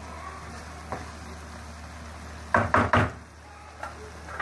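A cooking spatula knocked three times in quick succession against the rim of a kadai, about two and a half seconds in, with a couple of lighter single taps around them.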